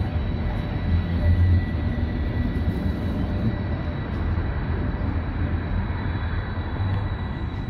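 Bielefeld Stadtbahn light-rail tram running past at close range: a low rumble of wheels on rail with a thin steady high whine over it, easing off slowly toward the end.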